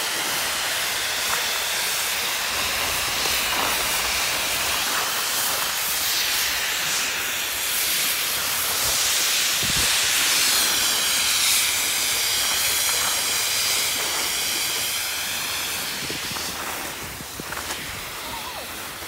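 Skis sliding and scraping over packed, groomed snow: a steady hiss that swells toward the middle and eases near the end.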